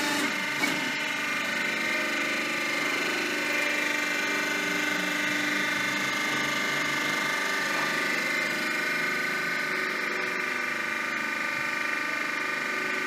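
Electric motor and hydraulic pump of a semi-manual concrete block and paving block press running with a steady whine. There is a short knock just after the start.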